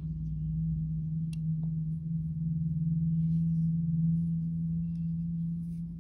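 A steady low droning tone, with a few faint clicks from the lens being handled, the clearest a little over a second in.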